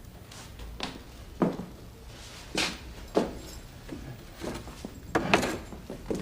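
A series of irregular knocks and clicks on a hard surface, about nine of them, the loudest about a second and a half in and again near the end.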